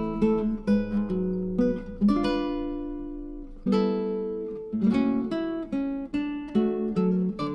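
Background music of a plucked acoustic guitar playing picked notes and strummed chords, each note ringing and fading.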